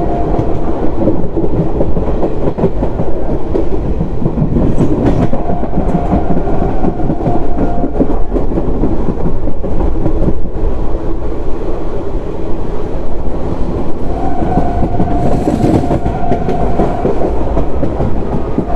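Old ICF passenger coaches running at speed on the track: a steady, loud rumble of wheels on rail with continual clickety-clack from the rail joints, and a humming tone that comes and goes a few times.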